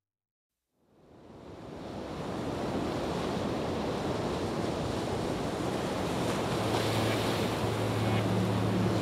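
Ambient background soundtrack. A steady rushing noise like surf or wind fades in about a second in, and a low steady hum joins it a few seconds later.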